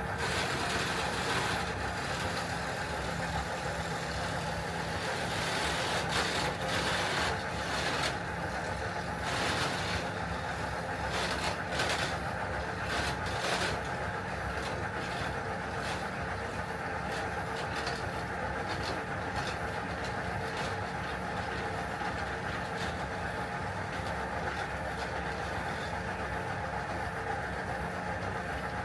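A clog-making machine running steadily as it carves out the inside of a wooden clog: a continuous motor hum and cutting noise with scattered short scrapes.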